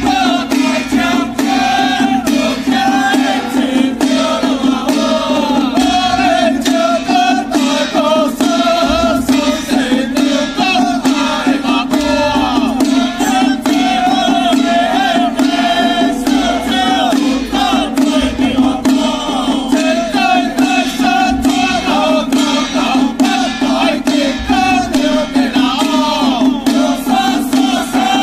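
Xiaofa ritual troupe chanting loudly in unison over rapid, continuous beating of hand-held frame drums, with a steady low drone underneath.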